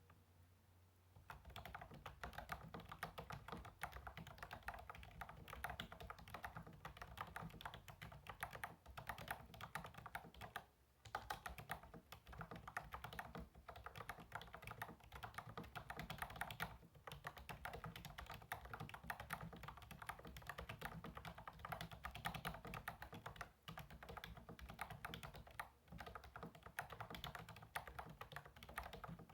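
Keys of a Redragon Karura 2 K502 semi-mechanical gaming keyboard being typed on quickly and without letup, a dense run of key clacks that begins about a second in, with a few brief pauses.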